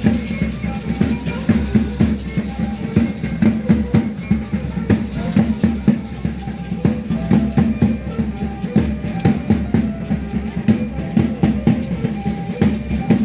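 Live matachines dance music: a drum beating a fast, steady rhythm with rattles shaking, and a violin playing the son above it.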